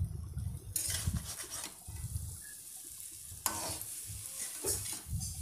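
Boiled noodles being tossed and stirred with a metal spatula in a hot steel kadai, with a light frying sizzle. The spatula scrapes sharply against the pan a few times in the second half.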